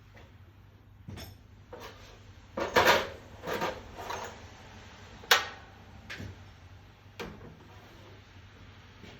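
Metal parts and tools clinking and knocking as they are handled and set down, about eight separate knocks with the loudest a cluster about three seconds in and a sharp single one just after five seconds.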